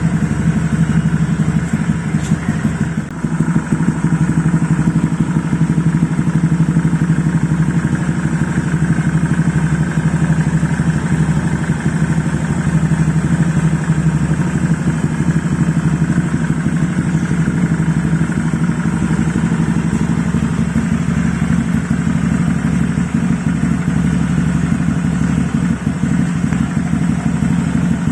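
Motorcycle exhaust through an ABF Racing Hexa big-volume silencer with full baffle packing and no dB killer, the engine running steadily. The exhaust note is mellow.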